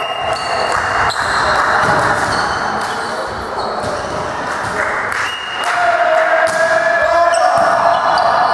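Echoing sports-hall din during a volleyball match: voices shouting and calling over one another, with short high squeaks and sharp ball or floor strikes throughout.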